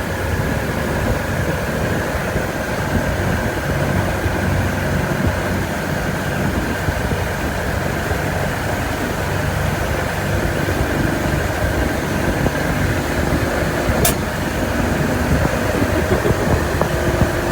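A motor engine running steadily and loud, close to the microphone, with one sharp click about fourteen seconds in.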